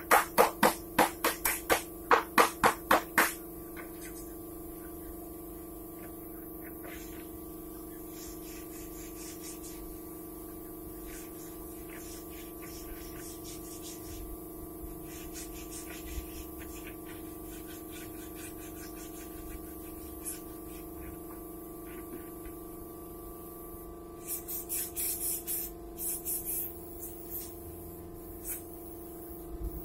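Steady motor hum of an air compressor feeding a paint spray gun. Loud short strokes come about four a second for the first three seconds and again between about 24 and 27 seconds.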